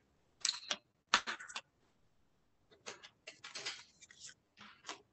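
Paper plates being handled and set out for dishing up food: a run of short, irregular rustles and scrapes.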